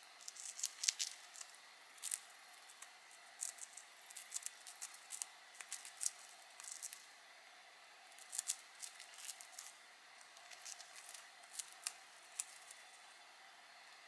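Budgerigar nibbling and shredding a dyed balsa wood chip with its beak: irregular crisp clicks and small crackles, coming in quick clusters with short pauses between them.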